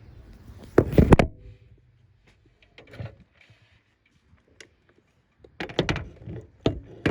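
Knocks and clunks of a stripped LCD TV panel and its chassis being handled and set down: a loud cluster about a second in, a few scattered clicks and thumps, and another run of knocks near the end.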